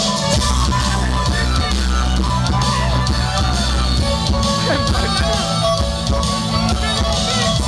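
Loud rock music in Spanish played over a DJ sound system's speakers, with drum kit, guitar and a heavy bass line.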